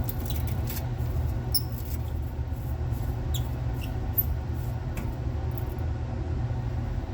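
Small screwdriver turning out the star-head cover screws of a hard drive: faint squeaks and clicks now and then over a steady low hum.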